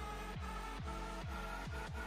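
Electronic background music: repeated bass hits that slide down in pitch, coming faster and faster, under a held tone that slowly rises.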